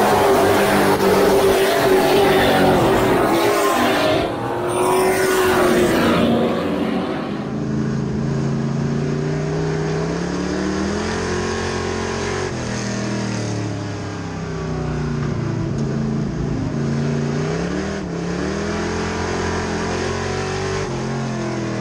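A field of race trucks passing in a pack, several engines at once with pitches sweeping as they go by. Then, from inside one truck's cab, its engine alone, revs climbing and dropping again several times as it laps.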